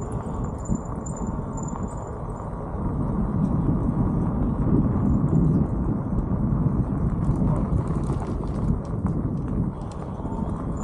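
Wind rushing over a helmet-mounted camera's microphone while riding, mixed with the crackle of bike tyres rolling over a gravel road. It grows a little louder about three seconds in.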